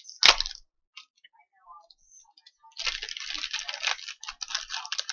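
A sharp click, then about two and a half seconds of dense crinkling and rustling as a new replacement diode is taken out of its packaging.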